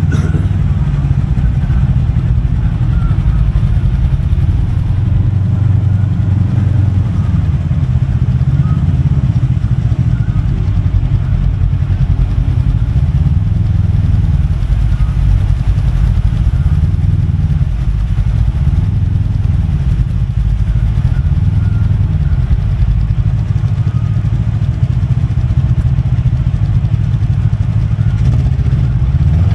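Side-by-side UTV engine running, a steady low drone that wavers a little up and down in pitch.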